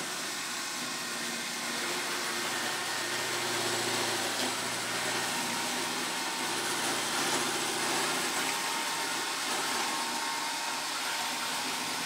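iRobot Roomba S9+ robot vacuum running steadily across a hardwood floor, its vacuum motor and brushes giving a continuous whir.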